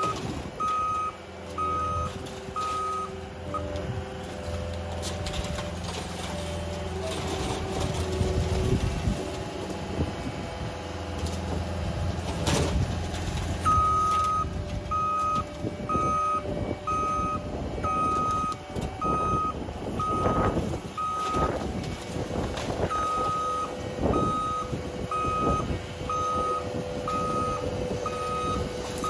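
A heavy machine's reversing alarm beeping, about one and a half beeps a second, over a steadily running diesel engine. The beeping stops a few seconds in and starts again about halfway through, and a few sharp knocks sound in between.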